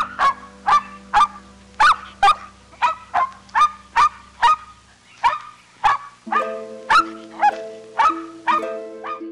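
An animal calling over and over, about two short calls a second, each dropping in pitch, over background music that gets fuller about six seconds in.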